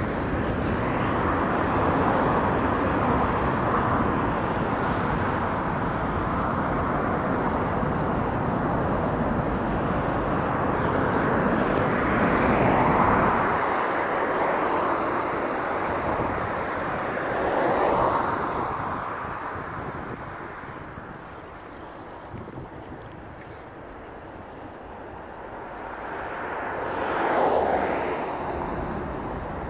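City road traffic: a steady hiss of tyres and engines, with single cars swelling past three times, about halfway through, a few seconds later and near the end.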